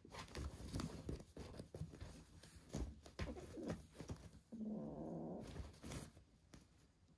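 Nylon fabric of a pop-up cat play tunnel rustling and crinkling in quick irregular bursts as a cat paws and wrestles with a kitten inside it. Halfway through, a low cat call lasts about a second.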